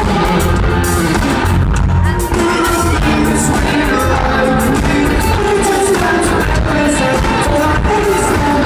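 Live pop-rock band playing loudly through a hall PA: electric guitar, bass guitar and drums with a sung lead vocal and steady drum hits.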